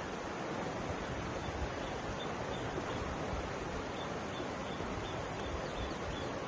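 Mountain river flowing: a steady rush of water over stones, with an uneven low rumble underneath.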